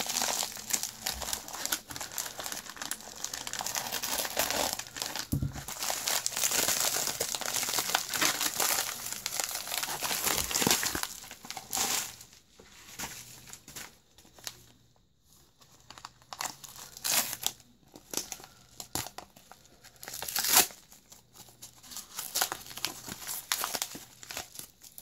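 Paper packing material being crumpled and torn open by hand. Dense crinkling for about the first eleven seconds, then sparser rustles and crackles, with one sharp snap near twenty seconds.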